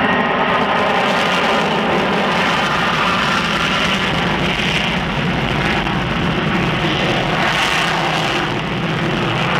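Twin Pratt & Whitney F100 turbofan engines of F-15D Eagle fighter jets running at takeoff power on the runway, with the afterburners lit for the takeoff roll. The sound is a loud, steady jet noise with a whining tone through it.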